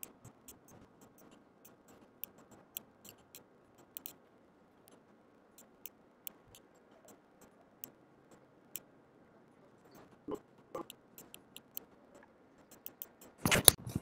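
Computer mouse clicking at irregular intervals, about fifteen short, sharp clicks over faint room hiss, with two stronger clicks about ten seconds in.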